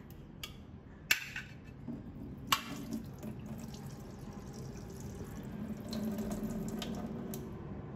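Liquid poured from an opened tin can of quail eggs, splashing steadily into a stainless steel sink. Before the pour, a few sharp metallic clinks from the can and its bent-back lid, the loudest about a second in and another at two and a half seconds.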